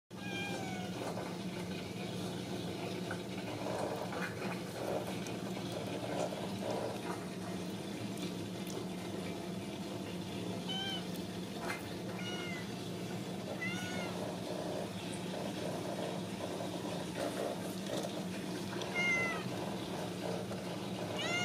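Very young Ragdoll kittens giving short, high mews now and then, about six in all: one at the start, a few in the middle and two near the end. A steady low hum runs underneath.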